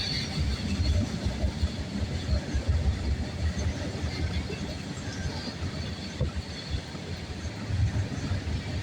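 Norfolk Southern freight train rolling past, a steady low rumble.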